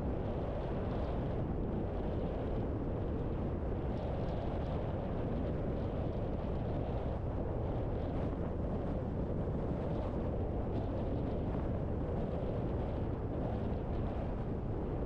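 Steady road noise of a car driving: a low, even rumble of tyres and engine with wind noise on the microphone.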